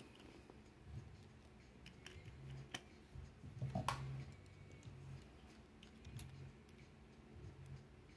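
Faint, scattered clicks and taps of a plastic USB flash drive and a small metal prying blade being handled. A low hum comes and goes underneath.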